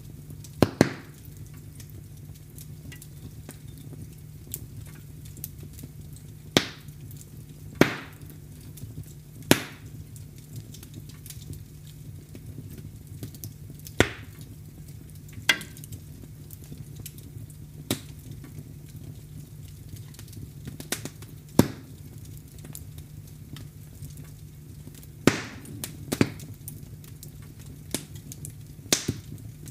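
Wood fire crackling in a fireplace: about a dozen sharp pops and snaps at irregular intervals over a low, steady background of the burning fire.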